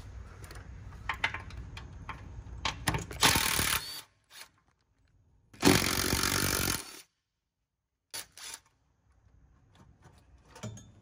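Cordless Milwaukee impact driver loosening the 13 mm bolts that hold a factory fuel lift pump to a truck's frame rail. It hammers in two bursts, a short one about three seconds in and a longer one of about a second near the middle, with scattered clicks and rattles of the socket and bolts around them.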